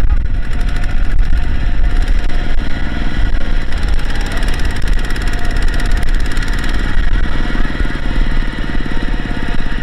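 Heavy diesel engine of earth-moving machinery running hard, with a fast, even pulse.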